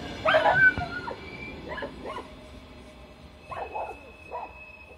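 Small dog barking: one loud bark about a third of a second in, then several shorter barks and yips. A passing train's rumble fades underneath.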